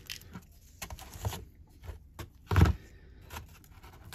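Quiet handling noise, with faint clicks and one dull thump about two and a half seconds in.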